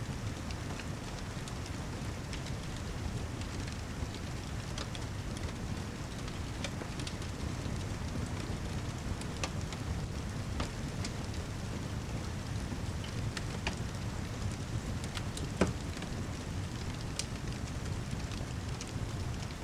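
Steady heavy rain over a low rumble, with scattered sharp crackles and pops from a wood fire. One pop about three-quarters of the way through is louder than the rest.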